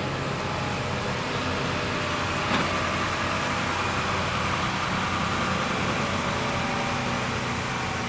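John Deere 7310R tractor's six-cylinder diesel engine running steadily as the tractor turns on the headland, with a single brief knock about two and a half seconds in.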